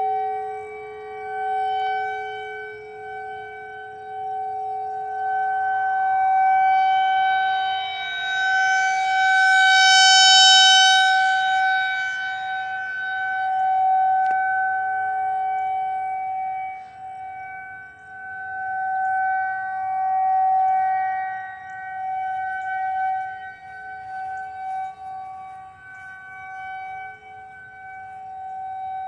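Outdoor tornado warning siren sounding a steady tone for its monthly test. The sound swells and fades every few seconds, loudest about ten seconds in, with a second, lower tone heard at times.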